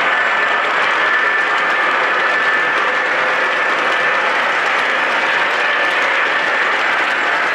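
O gauge model train running on the layout's track: a steady rolling rattle of wheels on rail with a steady high whine from the motor and gears.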